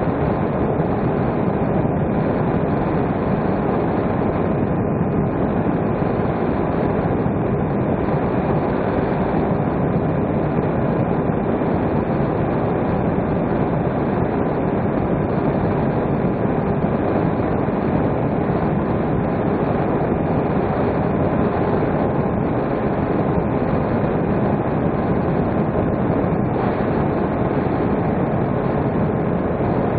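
Steady rush of airflow over the onboard camera of an electric RC plane in flight, with a faint steady whine from its motor and propeller.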